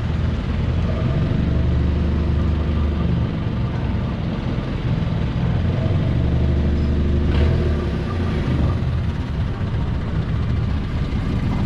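Long-tail boat engine running steadily at a low, throbbing pitch, with a short burst of noise about seven seconds in.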